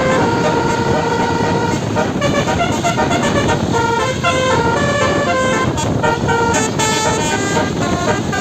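Basuri 12-note telolet musical bus horn playing a melody: several horn notes sound together and step to new pitches every fraction of a second, over steady background noise.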